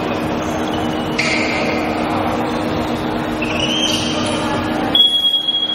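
A referee's whistle blown about five seconds in, one high held note that starts abruptly. Before it, a steady hum fills the large indoor sports hall, with a few short squeaks of sneakers on the wooden court.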